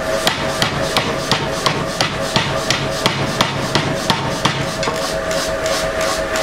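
Power hammer striking hot metal in a steady run of blows, about three a second, over a constant hum from the machine. The smith is forging a small ball in a ball swage.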